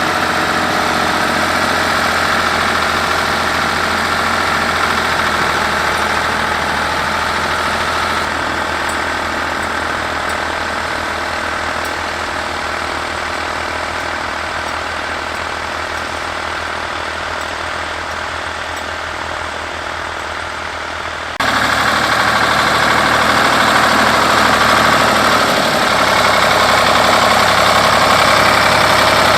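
1965 Ford 3000 tractor's three-cylinder engine running steadily. It slowly grows fainter, then about two-thirds of the way through it jumps suddenly louder and closer.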